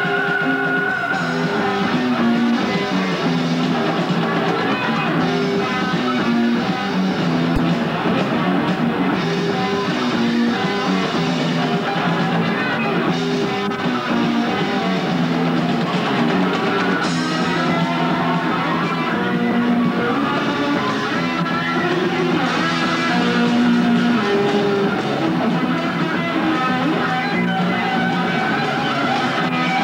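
Live rock band playing, with electric guitars, bass guitar and a drum kit, the music running at a steady level throughout.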